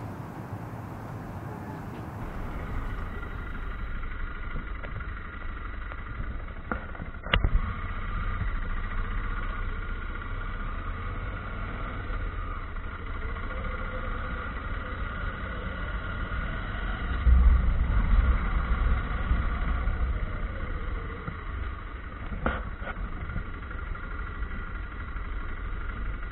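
Motorcycle running steadily at road speed, heard from a bike-mounted camera, with a steady low wind rumble on the microphone. A sharp click comes about a quarter of the way through, and a louder surge of low rumble about two-thirds of the way through.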